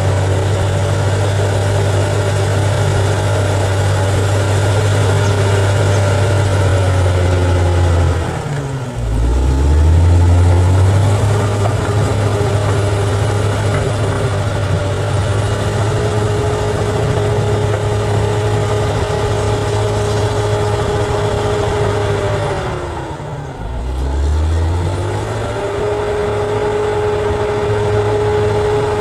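Bulldozer's diesel engine running steadily at working revs. Twice the revs drop sharply and then climb back up.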